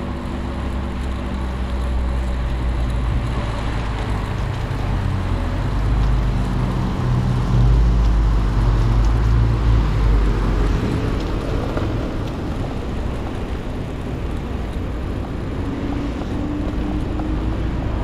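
Wind rush and rolling noise from a bicycle ride, picked up by a handlebar-mounted camera, with car traffic on the road alongside. A low rumble swells about six seconds in and fades again a few seconds later.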